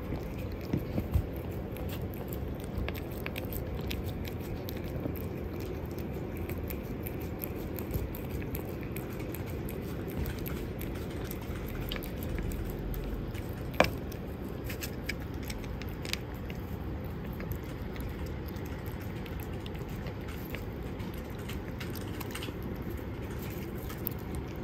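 Calico cat eating from a bowl: soft chewing with many small crunching clicks, and one sharp click about 14 seconds in.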